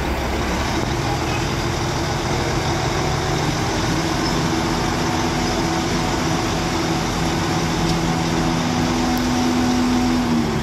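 Hyundai dump truck's diesel engine running steadily under load while its hydraulic hoist raises the tipper bed, with a steady hum that dips briefly right at the end.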